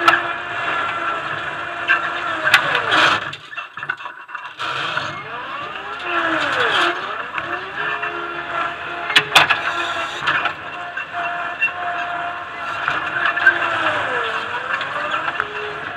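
TCM 706 loader's engine and hydraulics running close up, the pitch sagging under load and recovering a few times as the bucket works. A couple of sharp metallic clunks.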